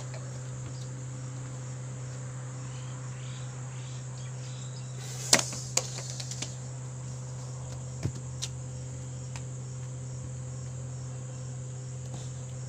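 Crickets chirping in a steady high drone. About halfway through come a few sharp, light clacks, the first the loudest, from stacked plastic cups being thrown and caught.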